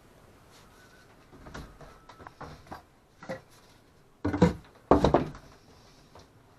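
Scattered knocks and clunks of parts and tools being handled while a tank fitting is worked on, with two louder bursts of bumping a little past the halfway point.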